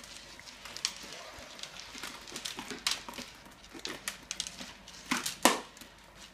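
A string of fairy lights being wound around an empty plastic drinks bottle: irregular crinkles, rustles and light clicks of the plastic bottle and the wire and bulbs rubbing on it, with a sharper knock about five seconds in.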